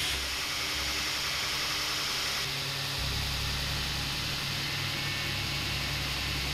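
Belt grinder running with a spring-steel knife blank held against the abrasive belt: a steady grinding hiss over a low motor hum. The tone shifts slightly about three seconds in.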